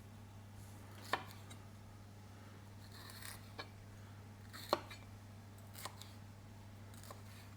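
Kitchen knife cutting capsicum on a chopping board: about five sharp knocks of the blade meeting the board, spaced a second or so apart, over a steady low hum.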